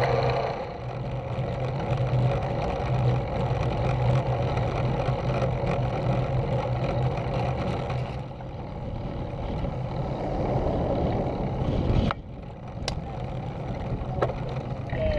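Wind rushing over the microphone of a camera on a moving road bike, with road and tyre noise and a steady low hum. About twelve seconds in it drops away abruptly to quieter outdoor sound with a few sharp clicks.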